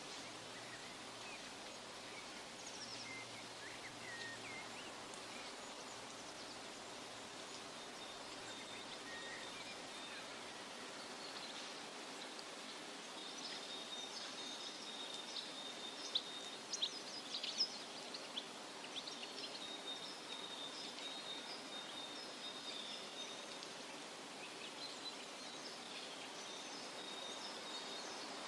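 Forest ambience: a steady soft hiss with birds chirping and trilling over it, busiest from about twelve seconds in, where a high steady trill runs for several seconds and a few sharp calls stand out.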